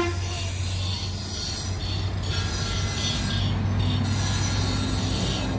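A coach's diesel engine running with a steady low drone as it pulls away, with a high thin squeal and rubbing noise over it. A short knock at the very start.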